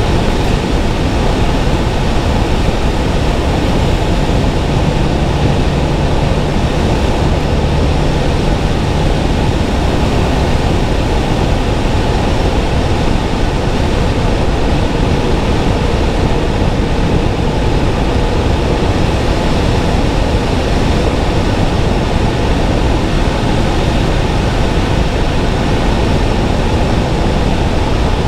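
Steady road and wind noise of a car driving along a road, with a low hum that comes in for a few seconds near the start.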